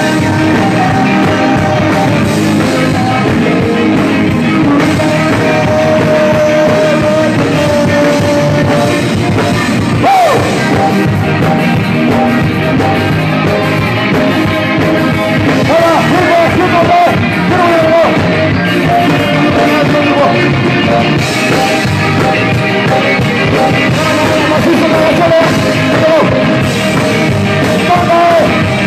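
Live band playing loud music, a man singing into a microphone over electric guitar and drums through stage amplifiers.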